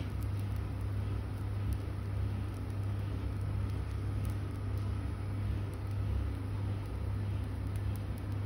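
A steady low hum with a light whir, even throughout, with no single event standing out.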